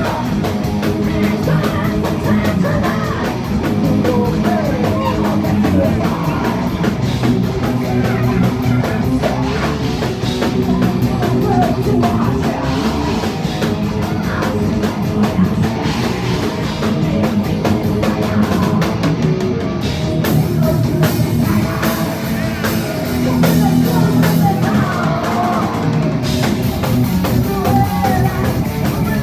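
Heavy metal band playing live: distorted electric guitars, bass and fast, driving drums, with a woman's voice singing.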